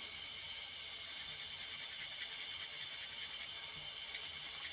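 Chopped onions sizzling in hot oil: a steady hiss with small crackles.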